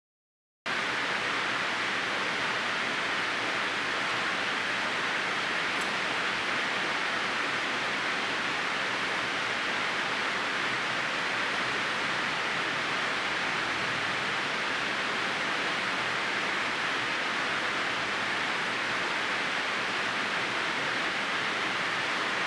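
Steady, even hiss like static or white noise. It starts abruptly about half a second in and stops abruptly at the very end.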